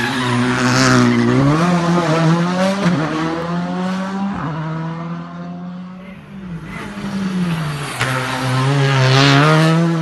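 Skoda Fabia R5 rally car's turbocharged four-cylinder engine revving hard through a hairpin, its pitch stepping up and down with the gear changes. The note drops away around the middle and climbs again near the end.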